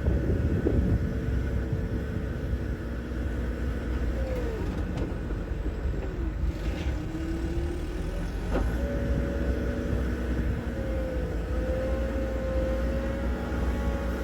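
Mecalac 12MTX mobile excavator's diesel engine running steadily, with a whining tone that dips and shifts in pitch several times, and a single sharp click about two-thirds of the way through.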